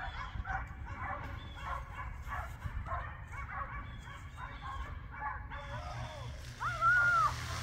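A dog yipping and whining in short, high cries about twice a second, the excited sound of a dog waiting to be released for a sprint. Near the end comes one longer, louder whine that rises, holds and falls.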